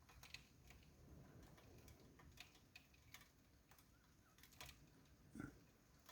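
Near silence with faint, scattered clicks at irregular intervals.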